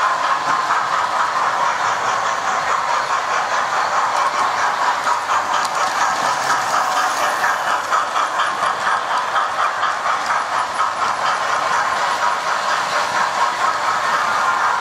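Model train running on the layout: the locomotive's small electric motor whirring steadily, with fast, regular ticking of the wheels over the track.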